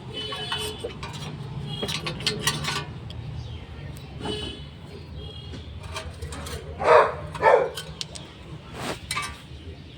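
Screwdriver clinking and scraping against the brake dust plate and rotor as a small stone jammed between them is pried out. Two short loud barks from a dog about seven seconds in, over a steady low hum.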